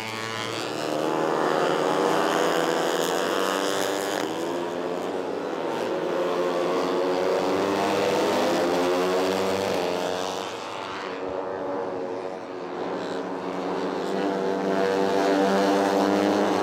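Several tuned, fuel-injected 150 cc four-stroke underbone race motorcycles running hard on track, their engine notes rising and falling together as they rev, shift and back off for corners. The sound dips briefly about eleven seconds in, then swells again.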